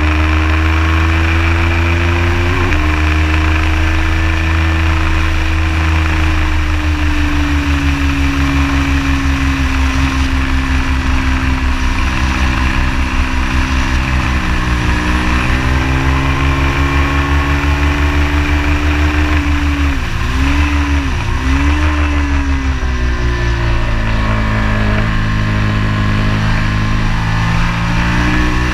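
Ducati Hypermotard 821 SP's L-twin engine breathing through a Termignoni full-race exhaust, heard onboard under way. Its pitch rises and falls with the throttle, with a dip in the middle and two quick drops and recoveries about two-thirds of the way in.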